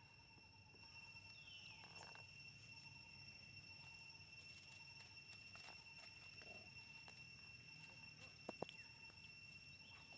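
Near silence: faint forest ambience with a steady high insect drone, a short call falling in pitch about one and a half seconds in, and two sharp clicks near the end.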